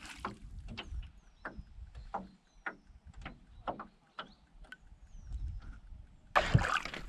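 A catfish kwok (квок) being struck on the water from a boat, calling catfish: a regular series of deep gulping plops, one about every half second or a little more, each dropping in pitch. Near the end comes a louder, noisier burst.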